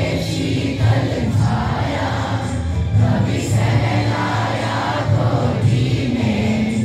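A large group of schoolchildren singing a morning prayer together in unison, with long held notes.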